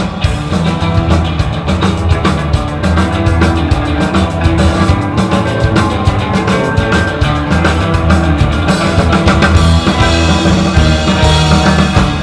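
Surf rock band playing live at full volume: electric guitars over a steady drum kit beat.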